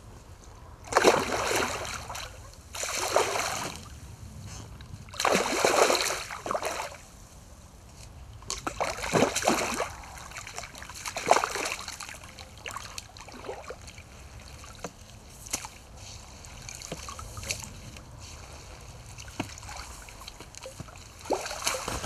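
A hooked carp splashing at the water's surface as it is played in to the bank and netted: a string of separate splashes, the bigger ones in the first twelve seconds or so and smaller ones after.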